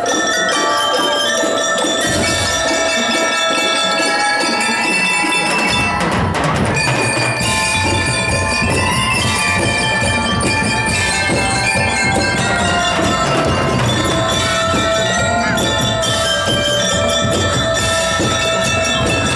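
Marching band playing, led by mallet percussion (bells and xylophones) with many ringing notes; about six seconds in, a crash and a fuller low end from the rest of the band join.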